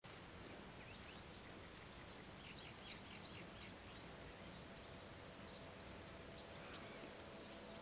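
Faint outdoor ambience with small birds chirping: a quick run of high chirps about three seconds in, and a few more near the end.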